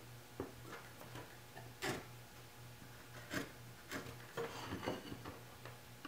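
Pencil scratching lines along a metal combination square on a pine strip, with scattered light clicks and taps as the square and the wood are shifted. A low steady hum runs underneath.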